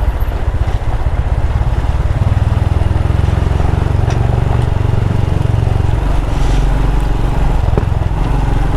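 Royal Enfield Himalayan's single-cylinder engine running steadily while riding along a dirt piste.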